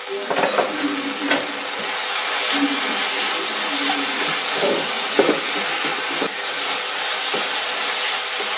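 Okra, onion, tomato and green chillies frying in coconut oil in a pan, sizzling steadily as a slotted spatula stirs and scrapes through them, with a few sharp knocks of the spatula against the pan.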